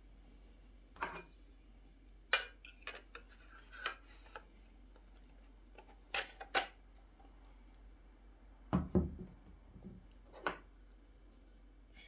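Scattered clicks and light knocks of an audio interface's casing and side caps being handled and set down on a wooden desk, with a heavier, duller thump about nine seconds in, the loudest.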